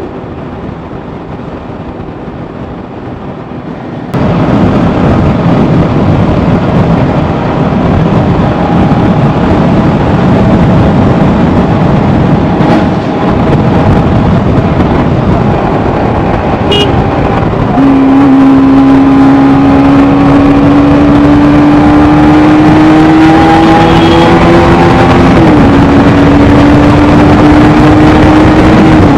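Wind rushing over the microphone of a moving road vehicle, getting suddenly louder about four seconds in. From about two-thirds of the way through, a steady motor hum rises slowly in pitch, drops briefly, then holds.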